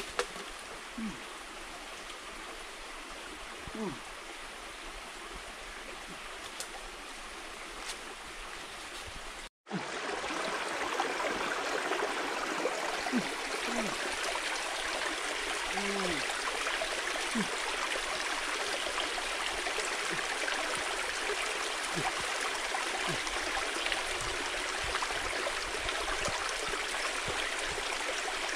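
Shallow forest stream running over rocks, a steady rush of water that becomes louder after a cut about ten seconds in.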